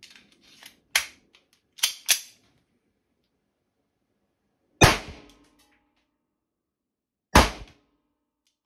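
Walther PPK blank pistol in 8 mm Knall firing two blank rounds, loud sharp bangs about two and a half seconds apart. A few sharp clicks come before them in the first two seconds.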